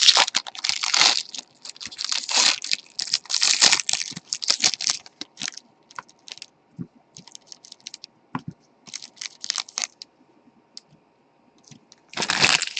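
A trading card pack wrapper being torn open and crinkled, with dense crackling for about the first five seconds, then scattered rustles and clicks as the cards are handled, and one more burst of crinkling near the end.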